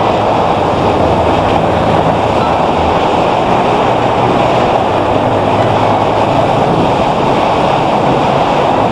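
Steady wind rush on the camera microphone while riding at a constant speed, with the Kawasaki KLX150L's single-cylinder four-stroke engine running underneath.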